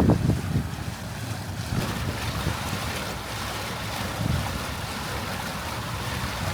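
Wind buffeting the microphone over the rush of water as a small boat motors along in a strong wind.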